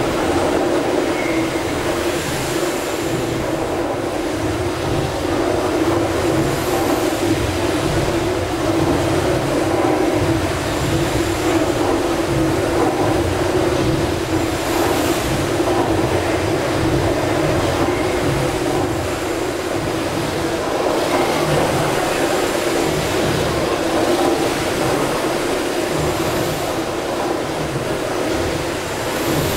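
Gimson steam beam engines running steadily, with a constant hum and a low, uneven pulsing from the turning machinery, and a short hiss repeating every few seconds.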